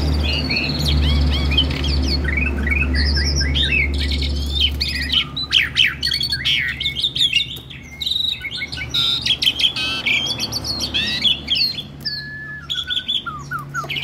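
Caged Asian pied starling (jalak suren) singing a busy run of varied chirps, whistles and harsh squawks, the full song a tamed bird gives in answer to other birds' calls.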